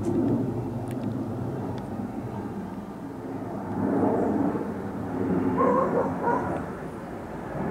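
Boeing 737-800 jet airliner with CFM56-7B engines passing overhead on approach, a steady low rumble. A dog barks a few times, around the middle and near the end.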